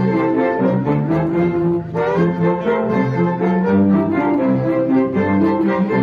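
String ensemble of violins, viola, cello and double bass playing a Mexican jarabe: a bowed melody in quickly changing notes over cello and double bass.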